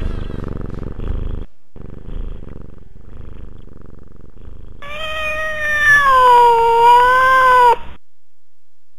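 A domestic cat purring in a low rumble, then about five seconds in one long drawn-out meow, wavering slowly in pitch, that cuts off abruptly after nearly three seconds.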